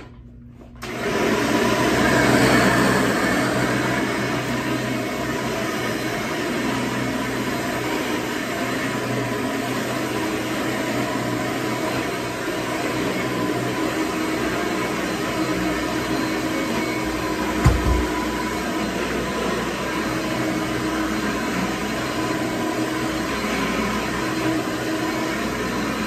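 1992 Hoover Runabout upright vacuum cleaner switched on about a second in, then running steadily and smoothly as it is pushed back and forth over carpet. One low thump comes about two-thirds of the way through.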